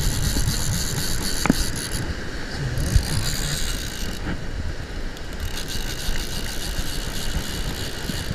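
Wind buffeting the microphone over breaking surf, with the mechanical whir and ticking of a surf-fishing reel being cranked.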